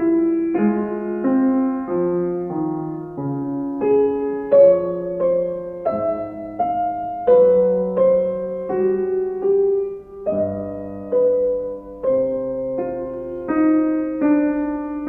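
Background music: a slow solo piano piece, single notes and chords struck one after another and left to fade, changing about once or twice a second.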